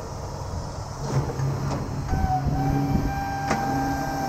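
Wrecker's hydraulic winch pulling its wire cables under load over the truck's running engine. About two seconds in, a steady high whine sets in and holds, with a few sharp clicks, the loudest about three and a half seconds in.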